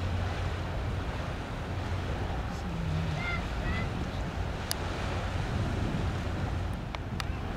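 Steady wind rumble on the microphone with river water washing, a few faint high chirps in the middle and a couple of sharp clicks near the end.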